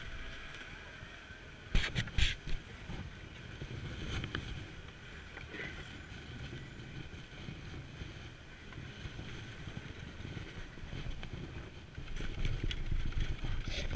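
Chairlift station machinery running with a steady hum and faint whine. About two seconds in there is a short sharp clatter as the chair scoops up the skier and their skis and poles. Near the end a louder rumble and wind noise come in as the chair rides out of the station.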